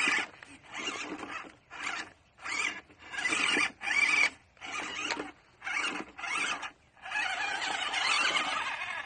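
Small RC crawler's 260 electric motor and gearbox whining in about ten short throttle bursts with brief pauses between them, then running steadily for the last two seconds.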